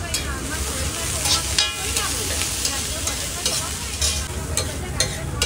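Steel spatula scraping and clanking on a large flat iron tawa, working Manchurian balls and chopped cabbage, with irregular strokes, some ringing briefly. Under it, a steady sizzle of the food frying on the hot griddle.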